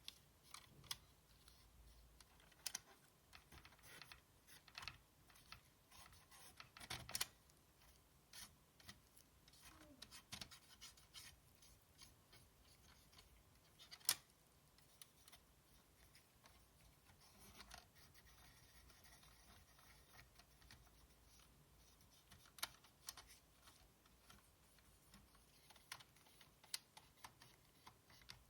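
Faint scattered clicks, taps and scratching as the small plastic and metal parts of a PS4 Slim's optical drive are handled and cleaned, with one sharper click about halfway through.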